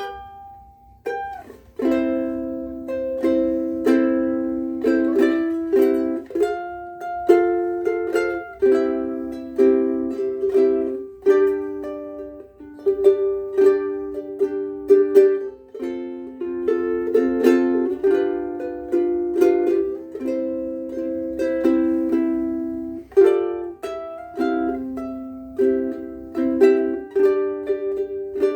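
Solo ukulele played by hand, chords strummed in a steady rhythm and changing about once a second, each strum ringing on briefly.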